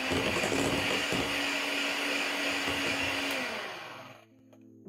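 Electric hand mixer running steadily as its beaters work through cake batter in a glass bowl, then switched off and winding down about three and a half seconds in.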